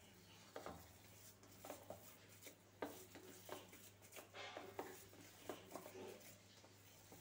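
Faint, irregular soft squishing and pressing of a hand kneading mashed boiled elephant foot yam against a ceramic plate, over a low steady hum.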